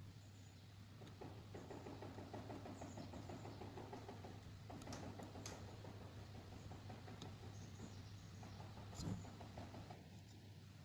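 Faint scratchy rubbing in two stretches, with a few light clicks, over a steady low hum.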